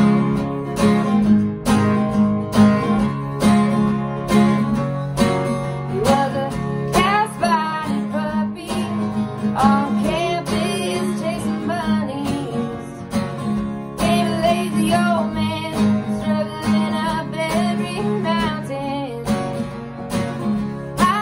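Two acoustic guitars strummed together in a steady rhythm, with singing coming in about six seconds in.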